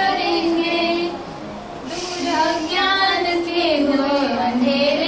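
A young woman singing solo into a handheld microphone: long held notes that glide up and down, softer for a moment between one and two seconds in.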